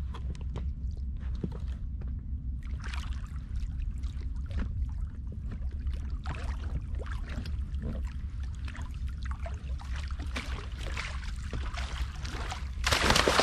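Water slapping and splashing against an inflatable boat's hull, with a steady low rumble of wind on the microphone. About thirteen seconds in, a sudden loud splash as a landing net is pushed into the water under a hooked grouper.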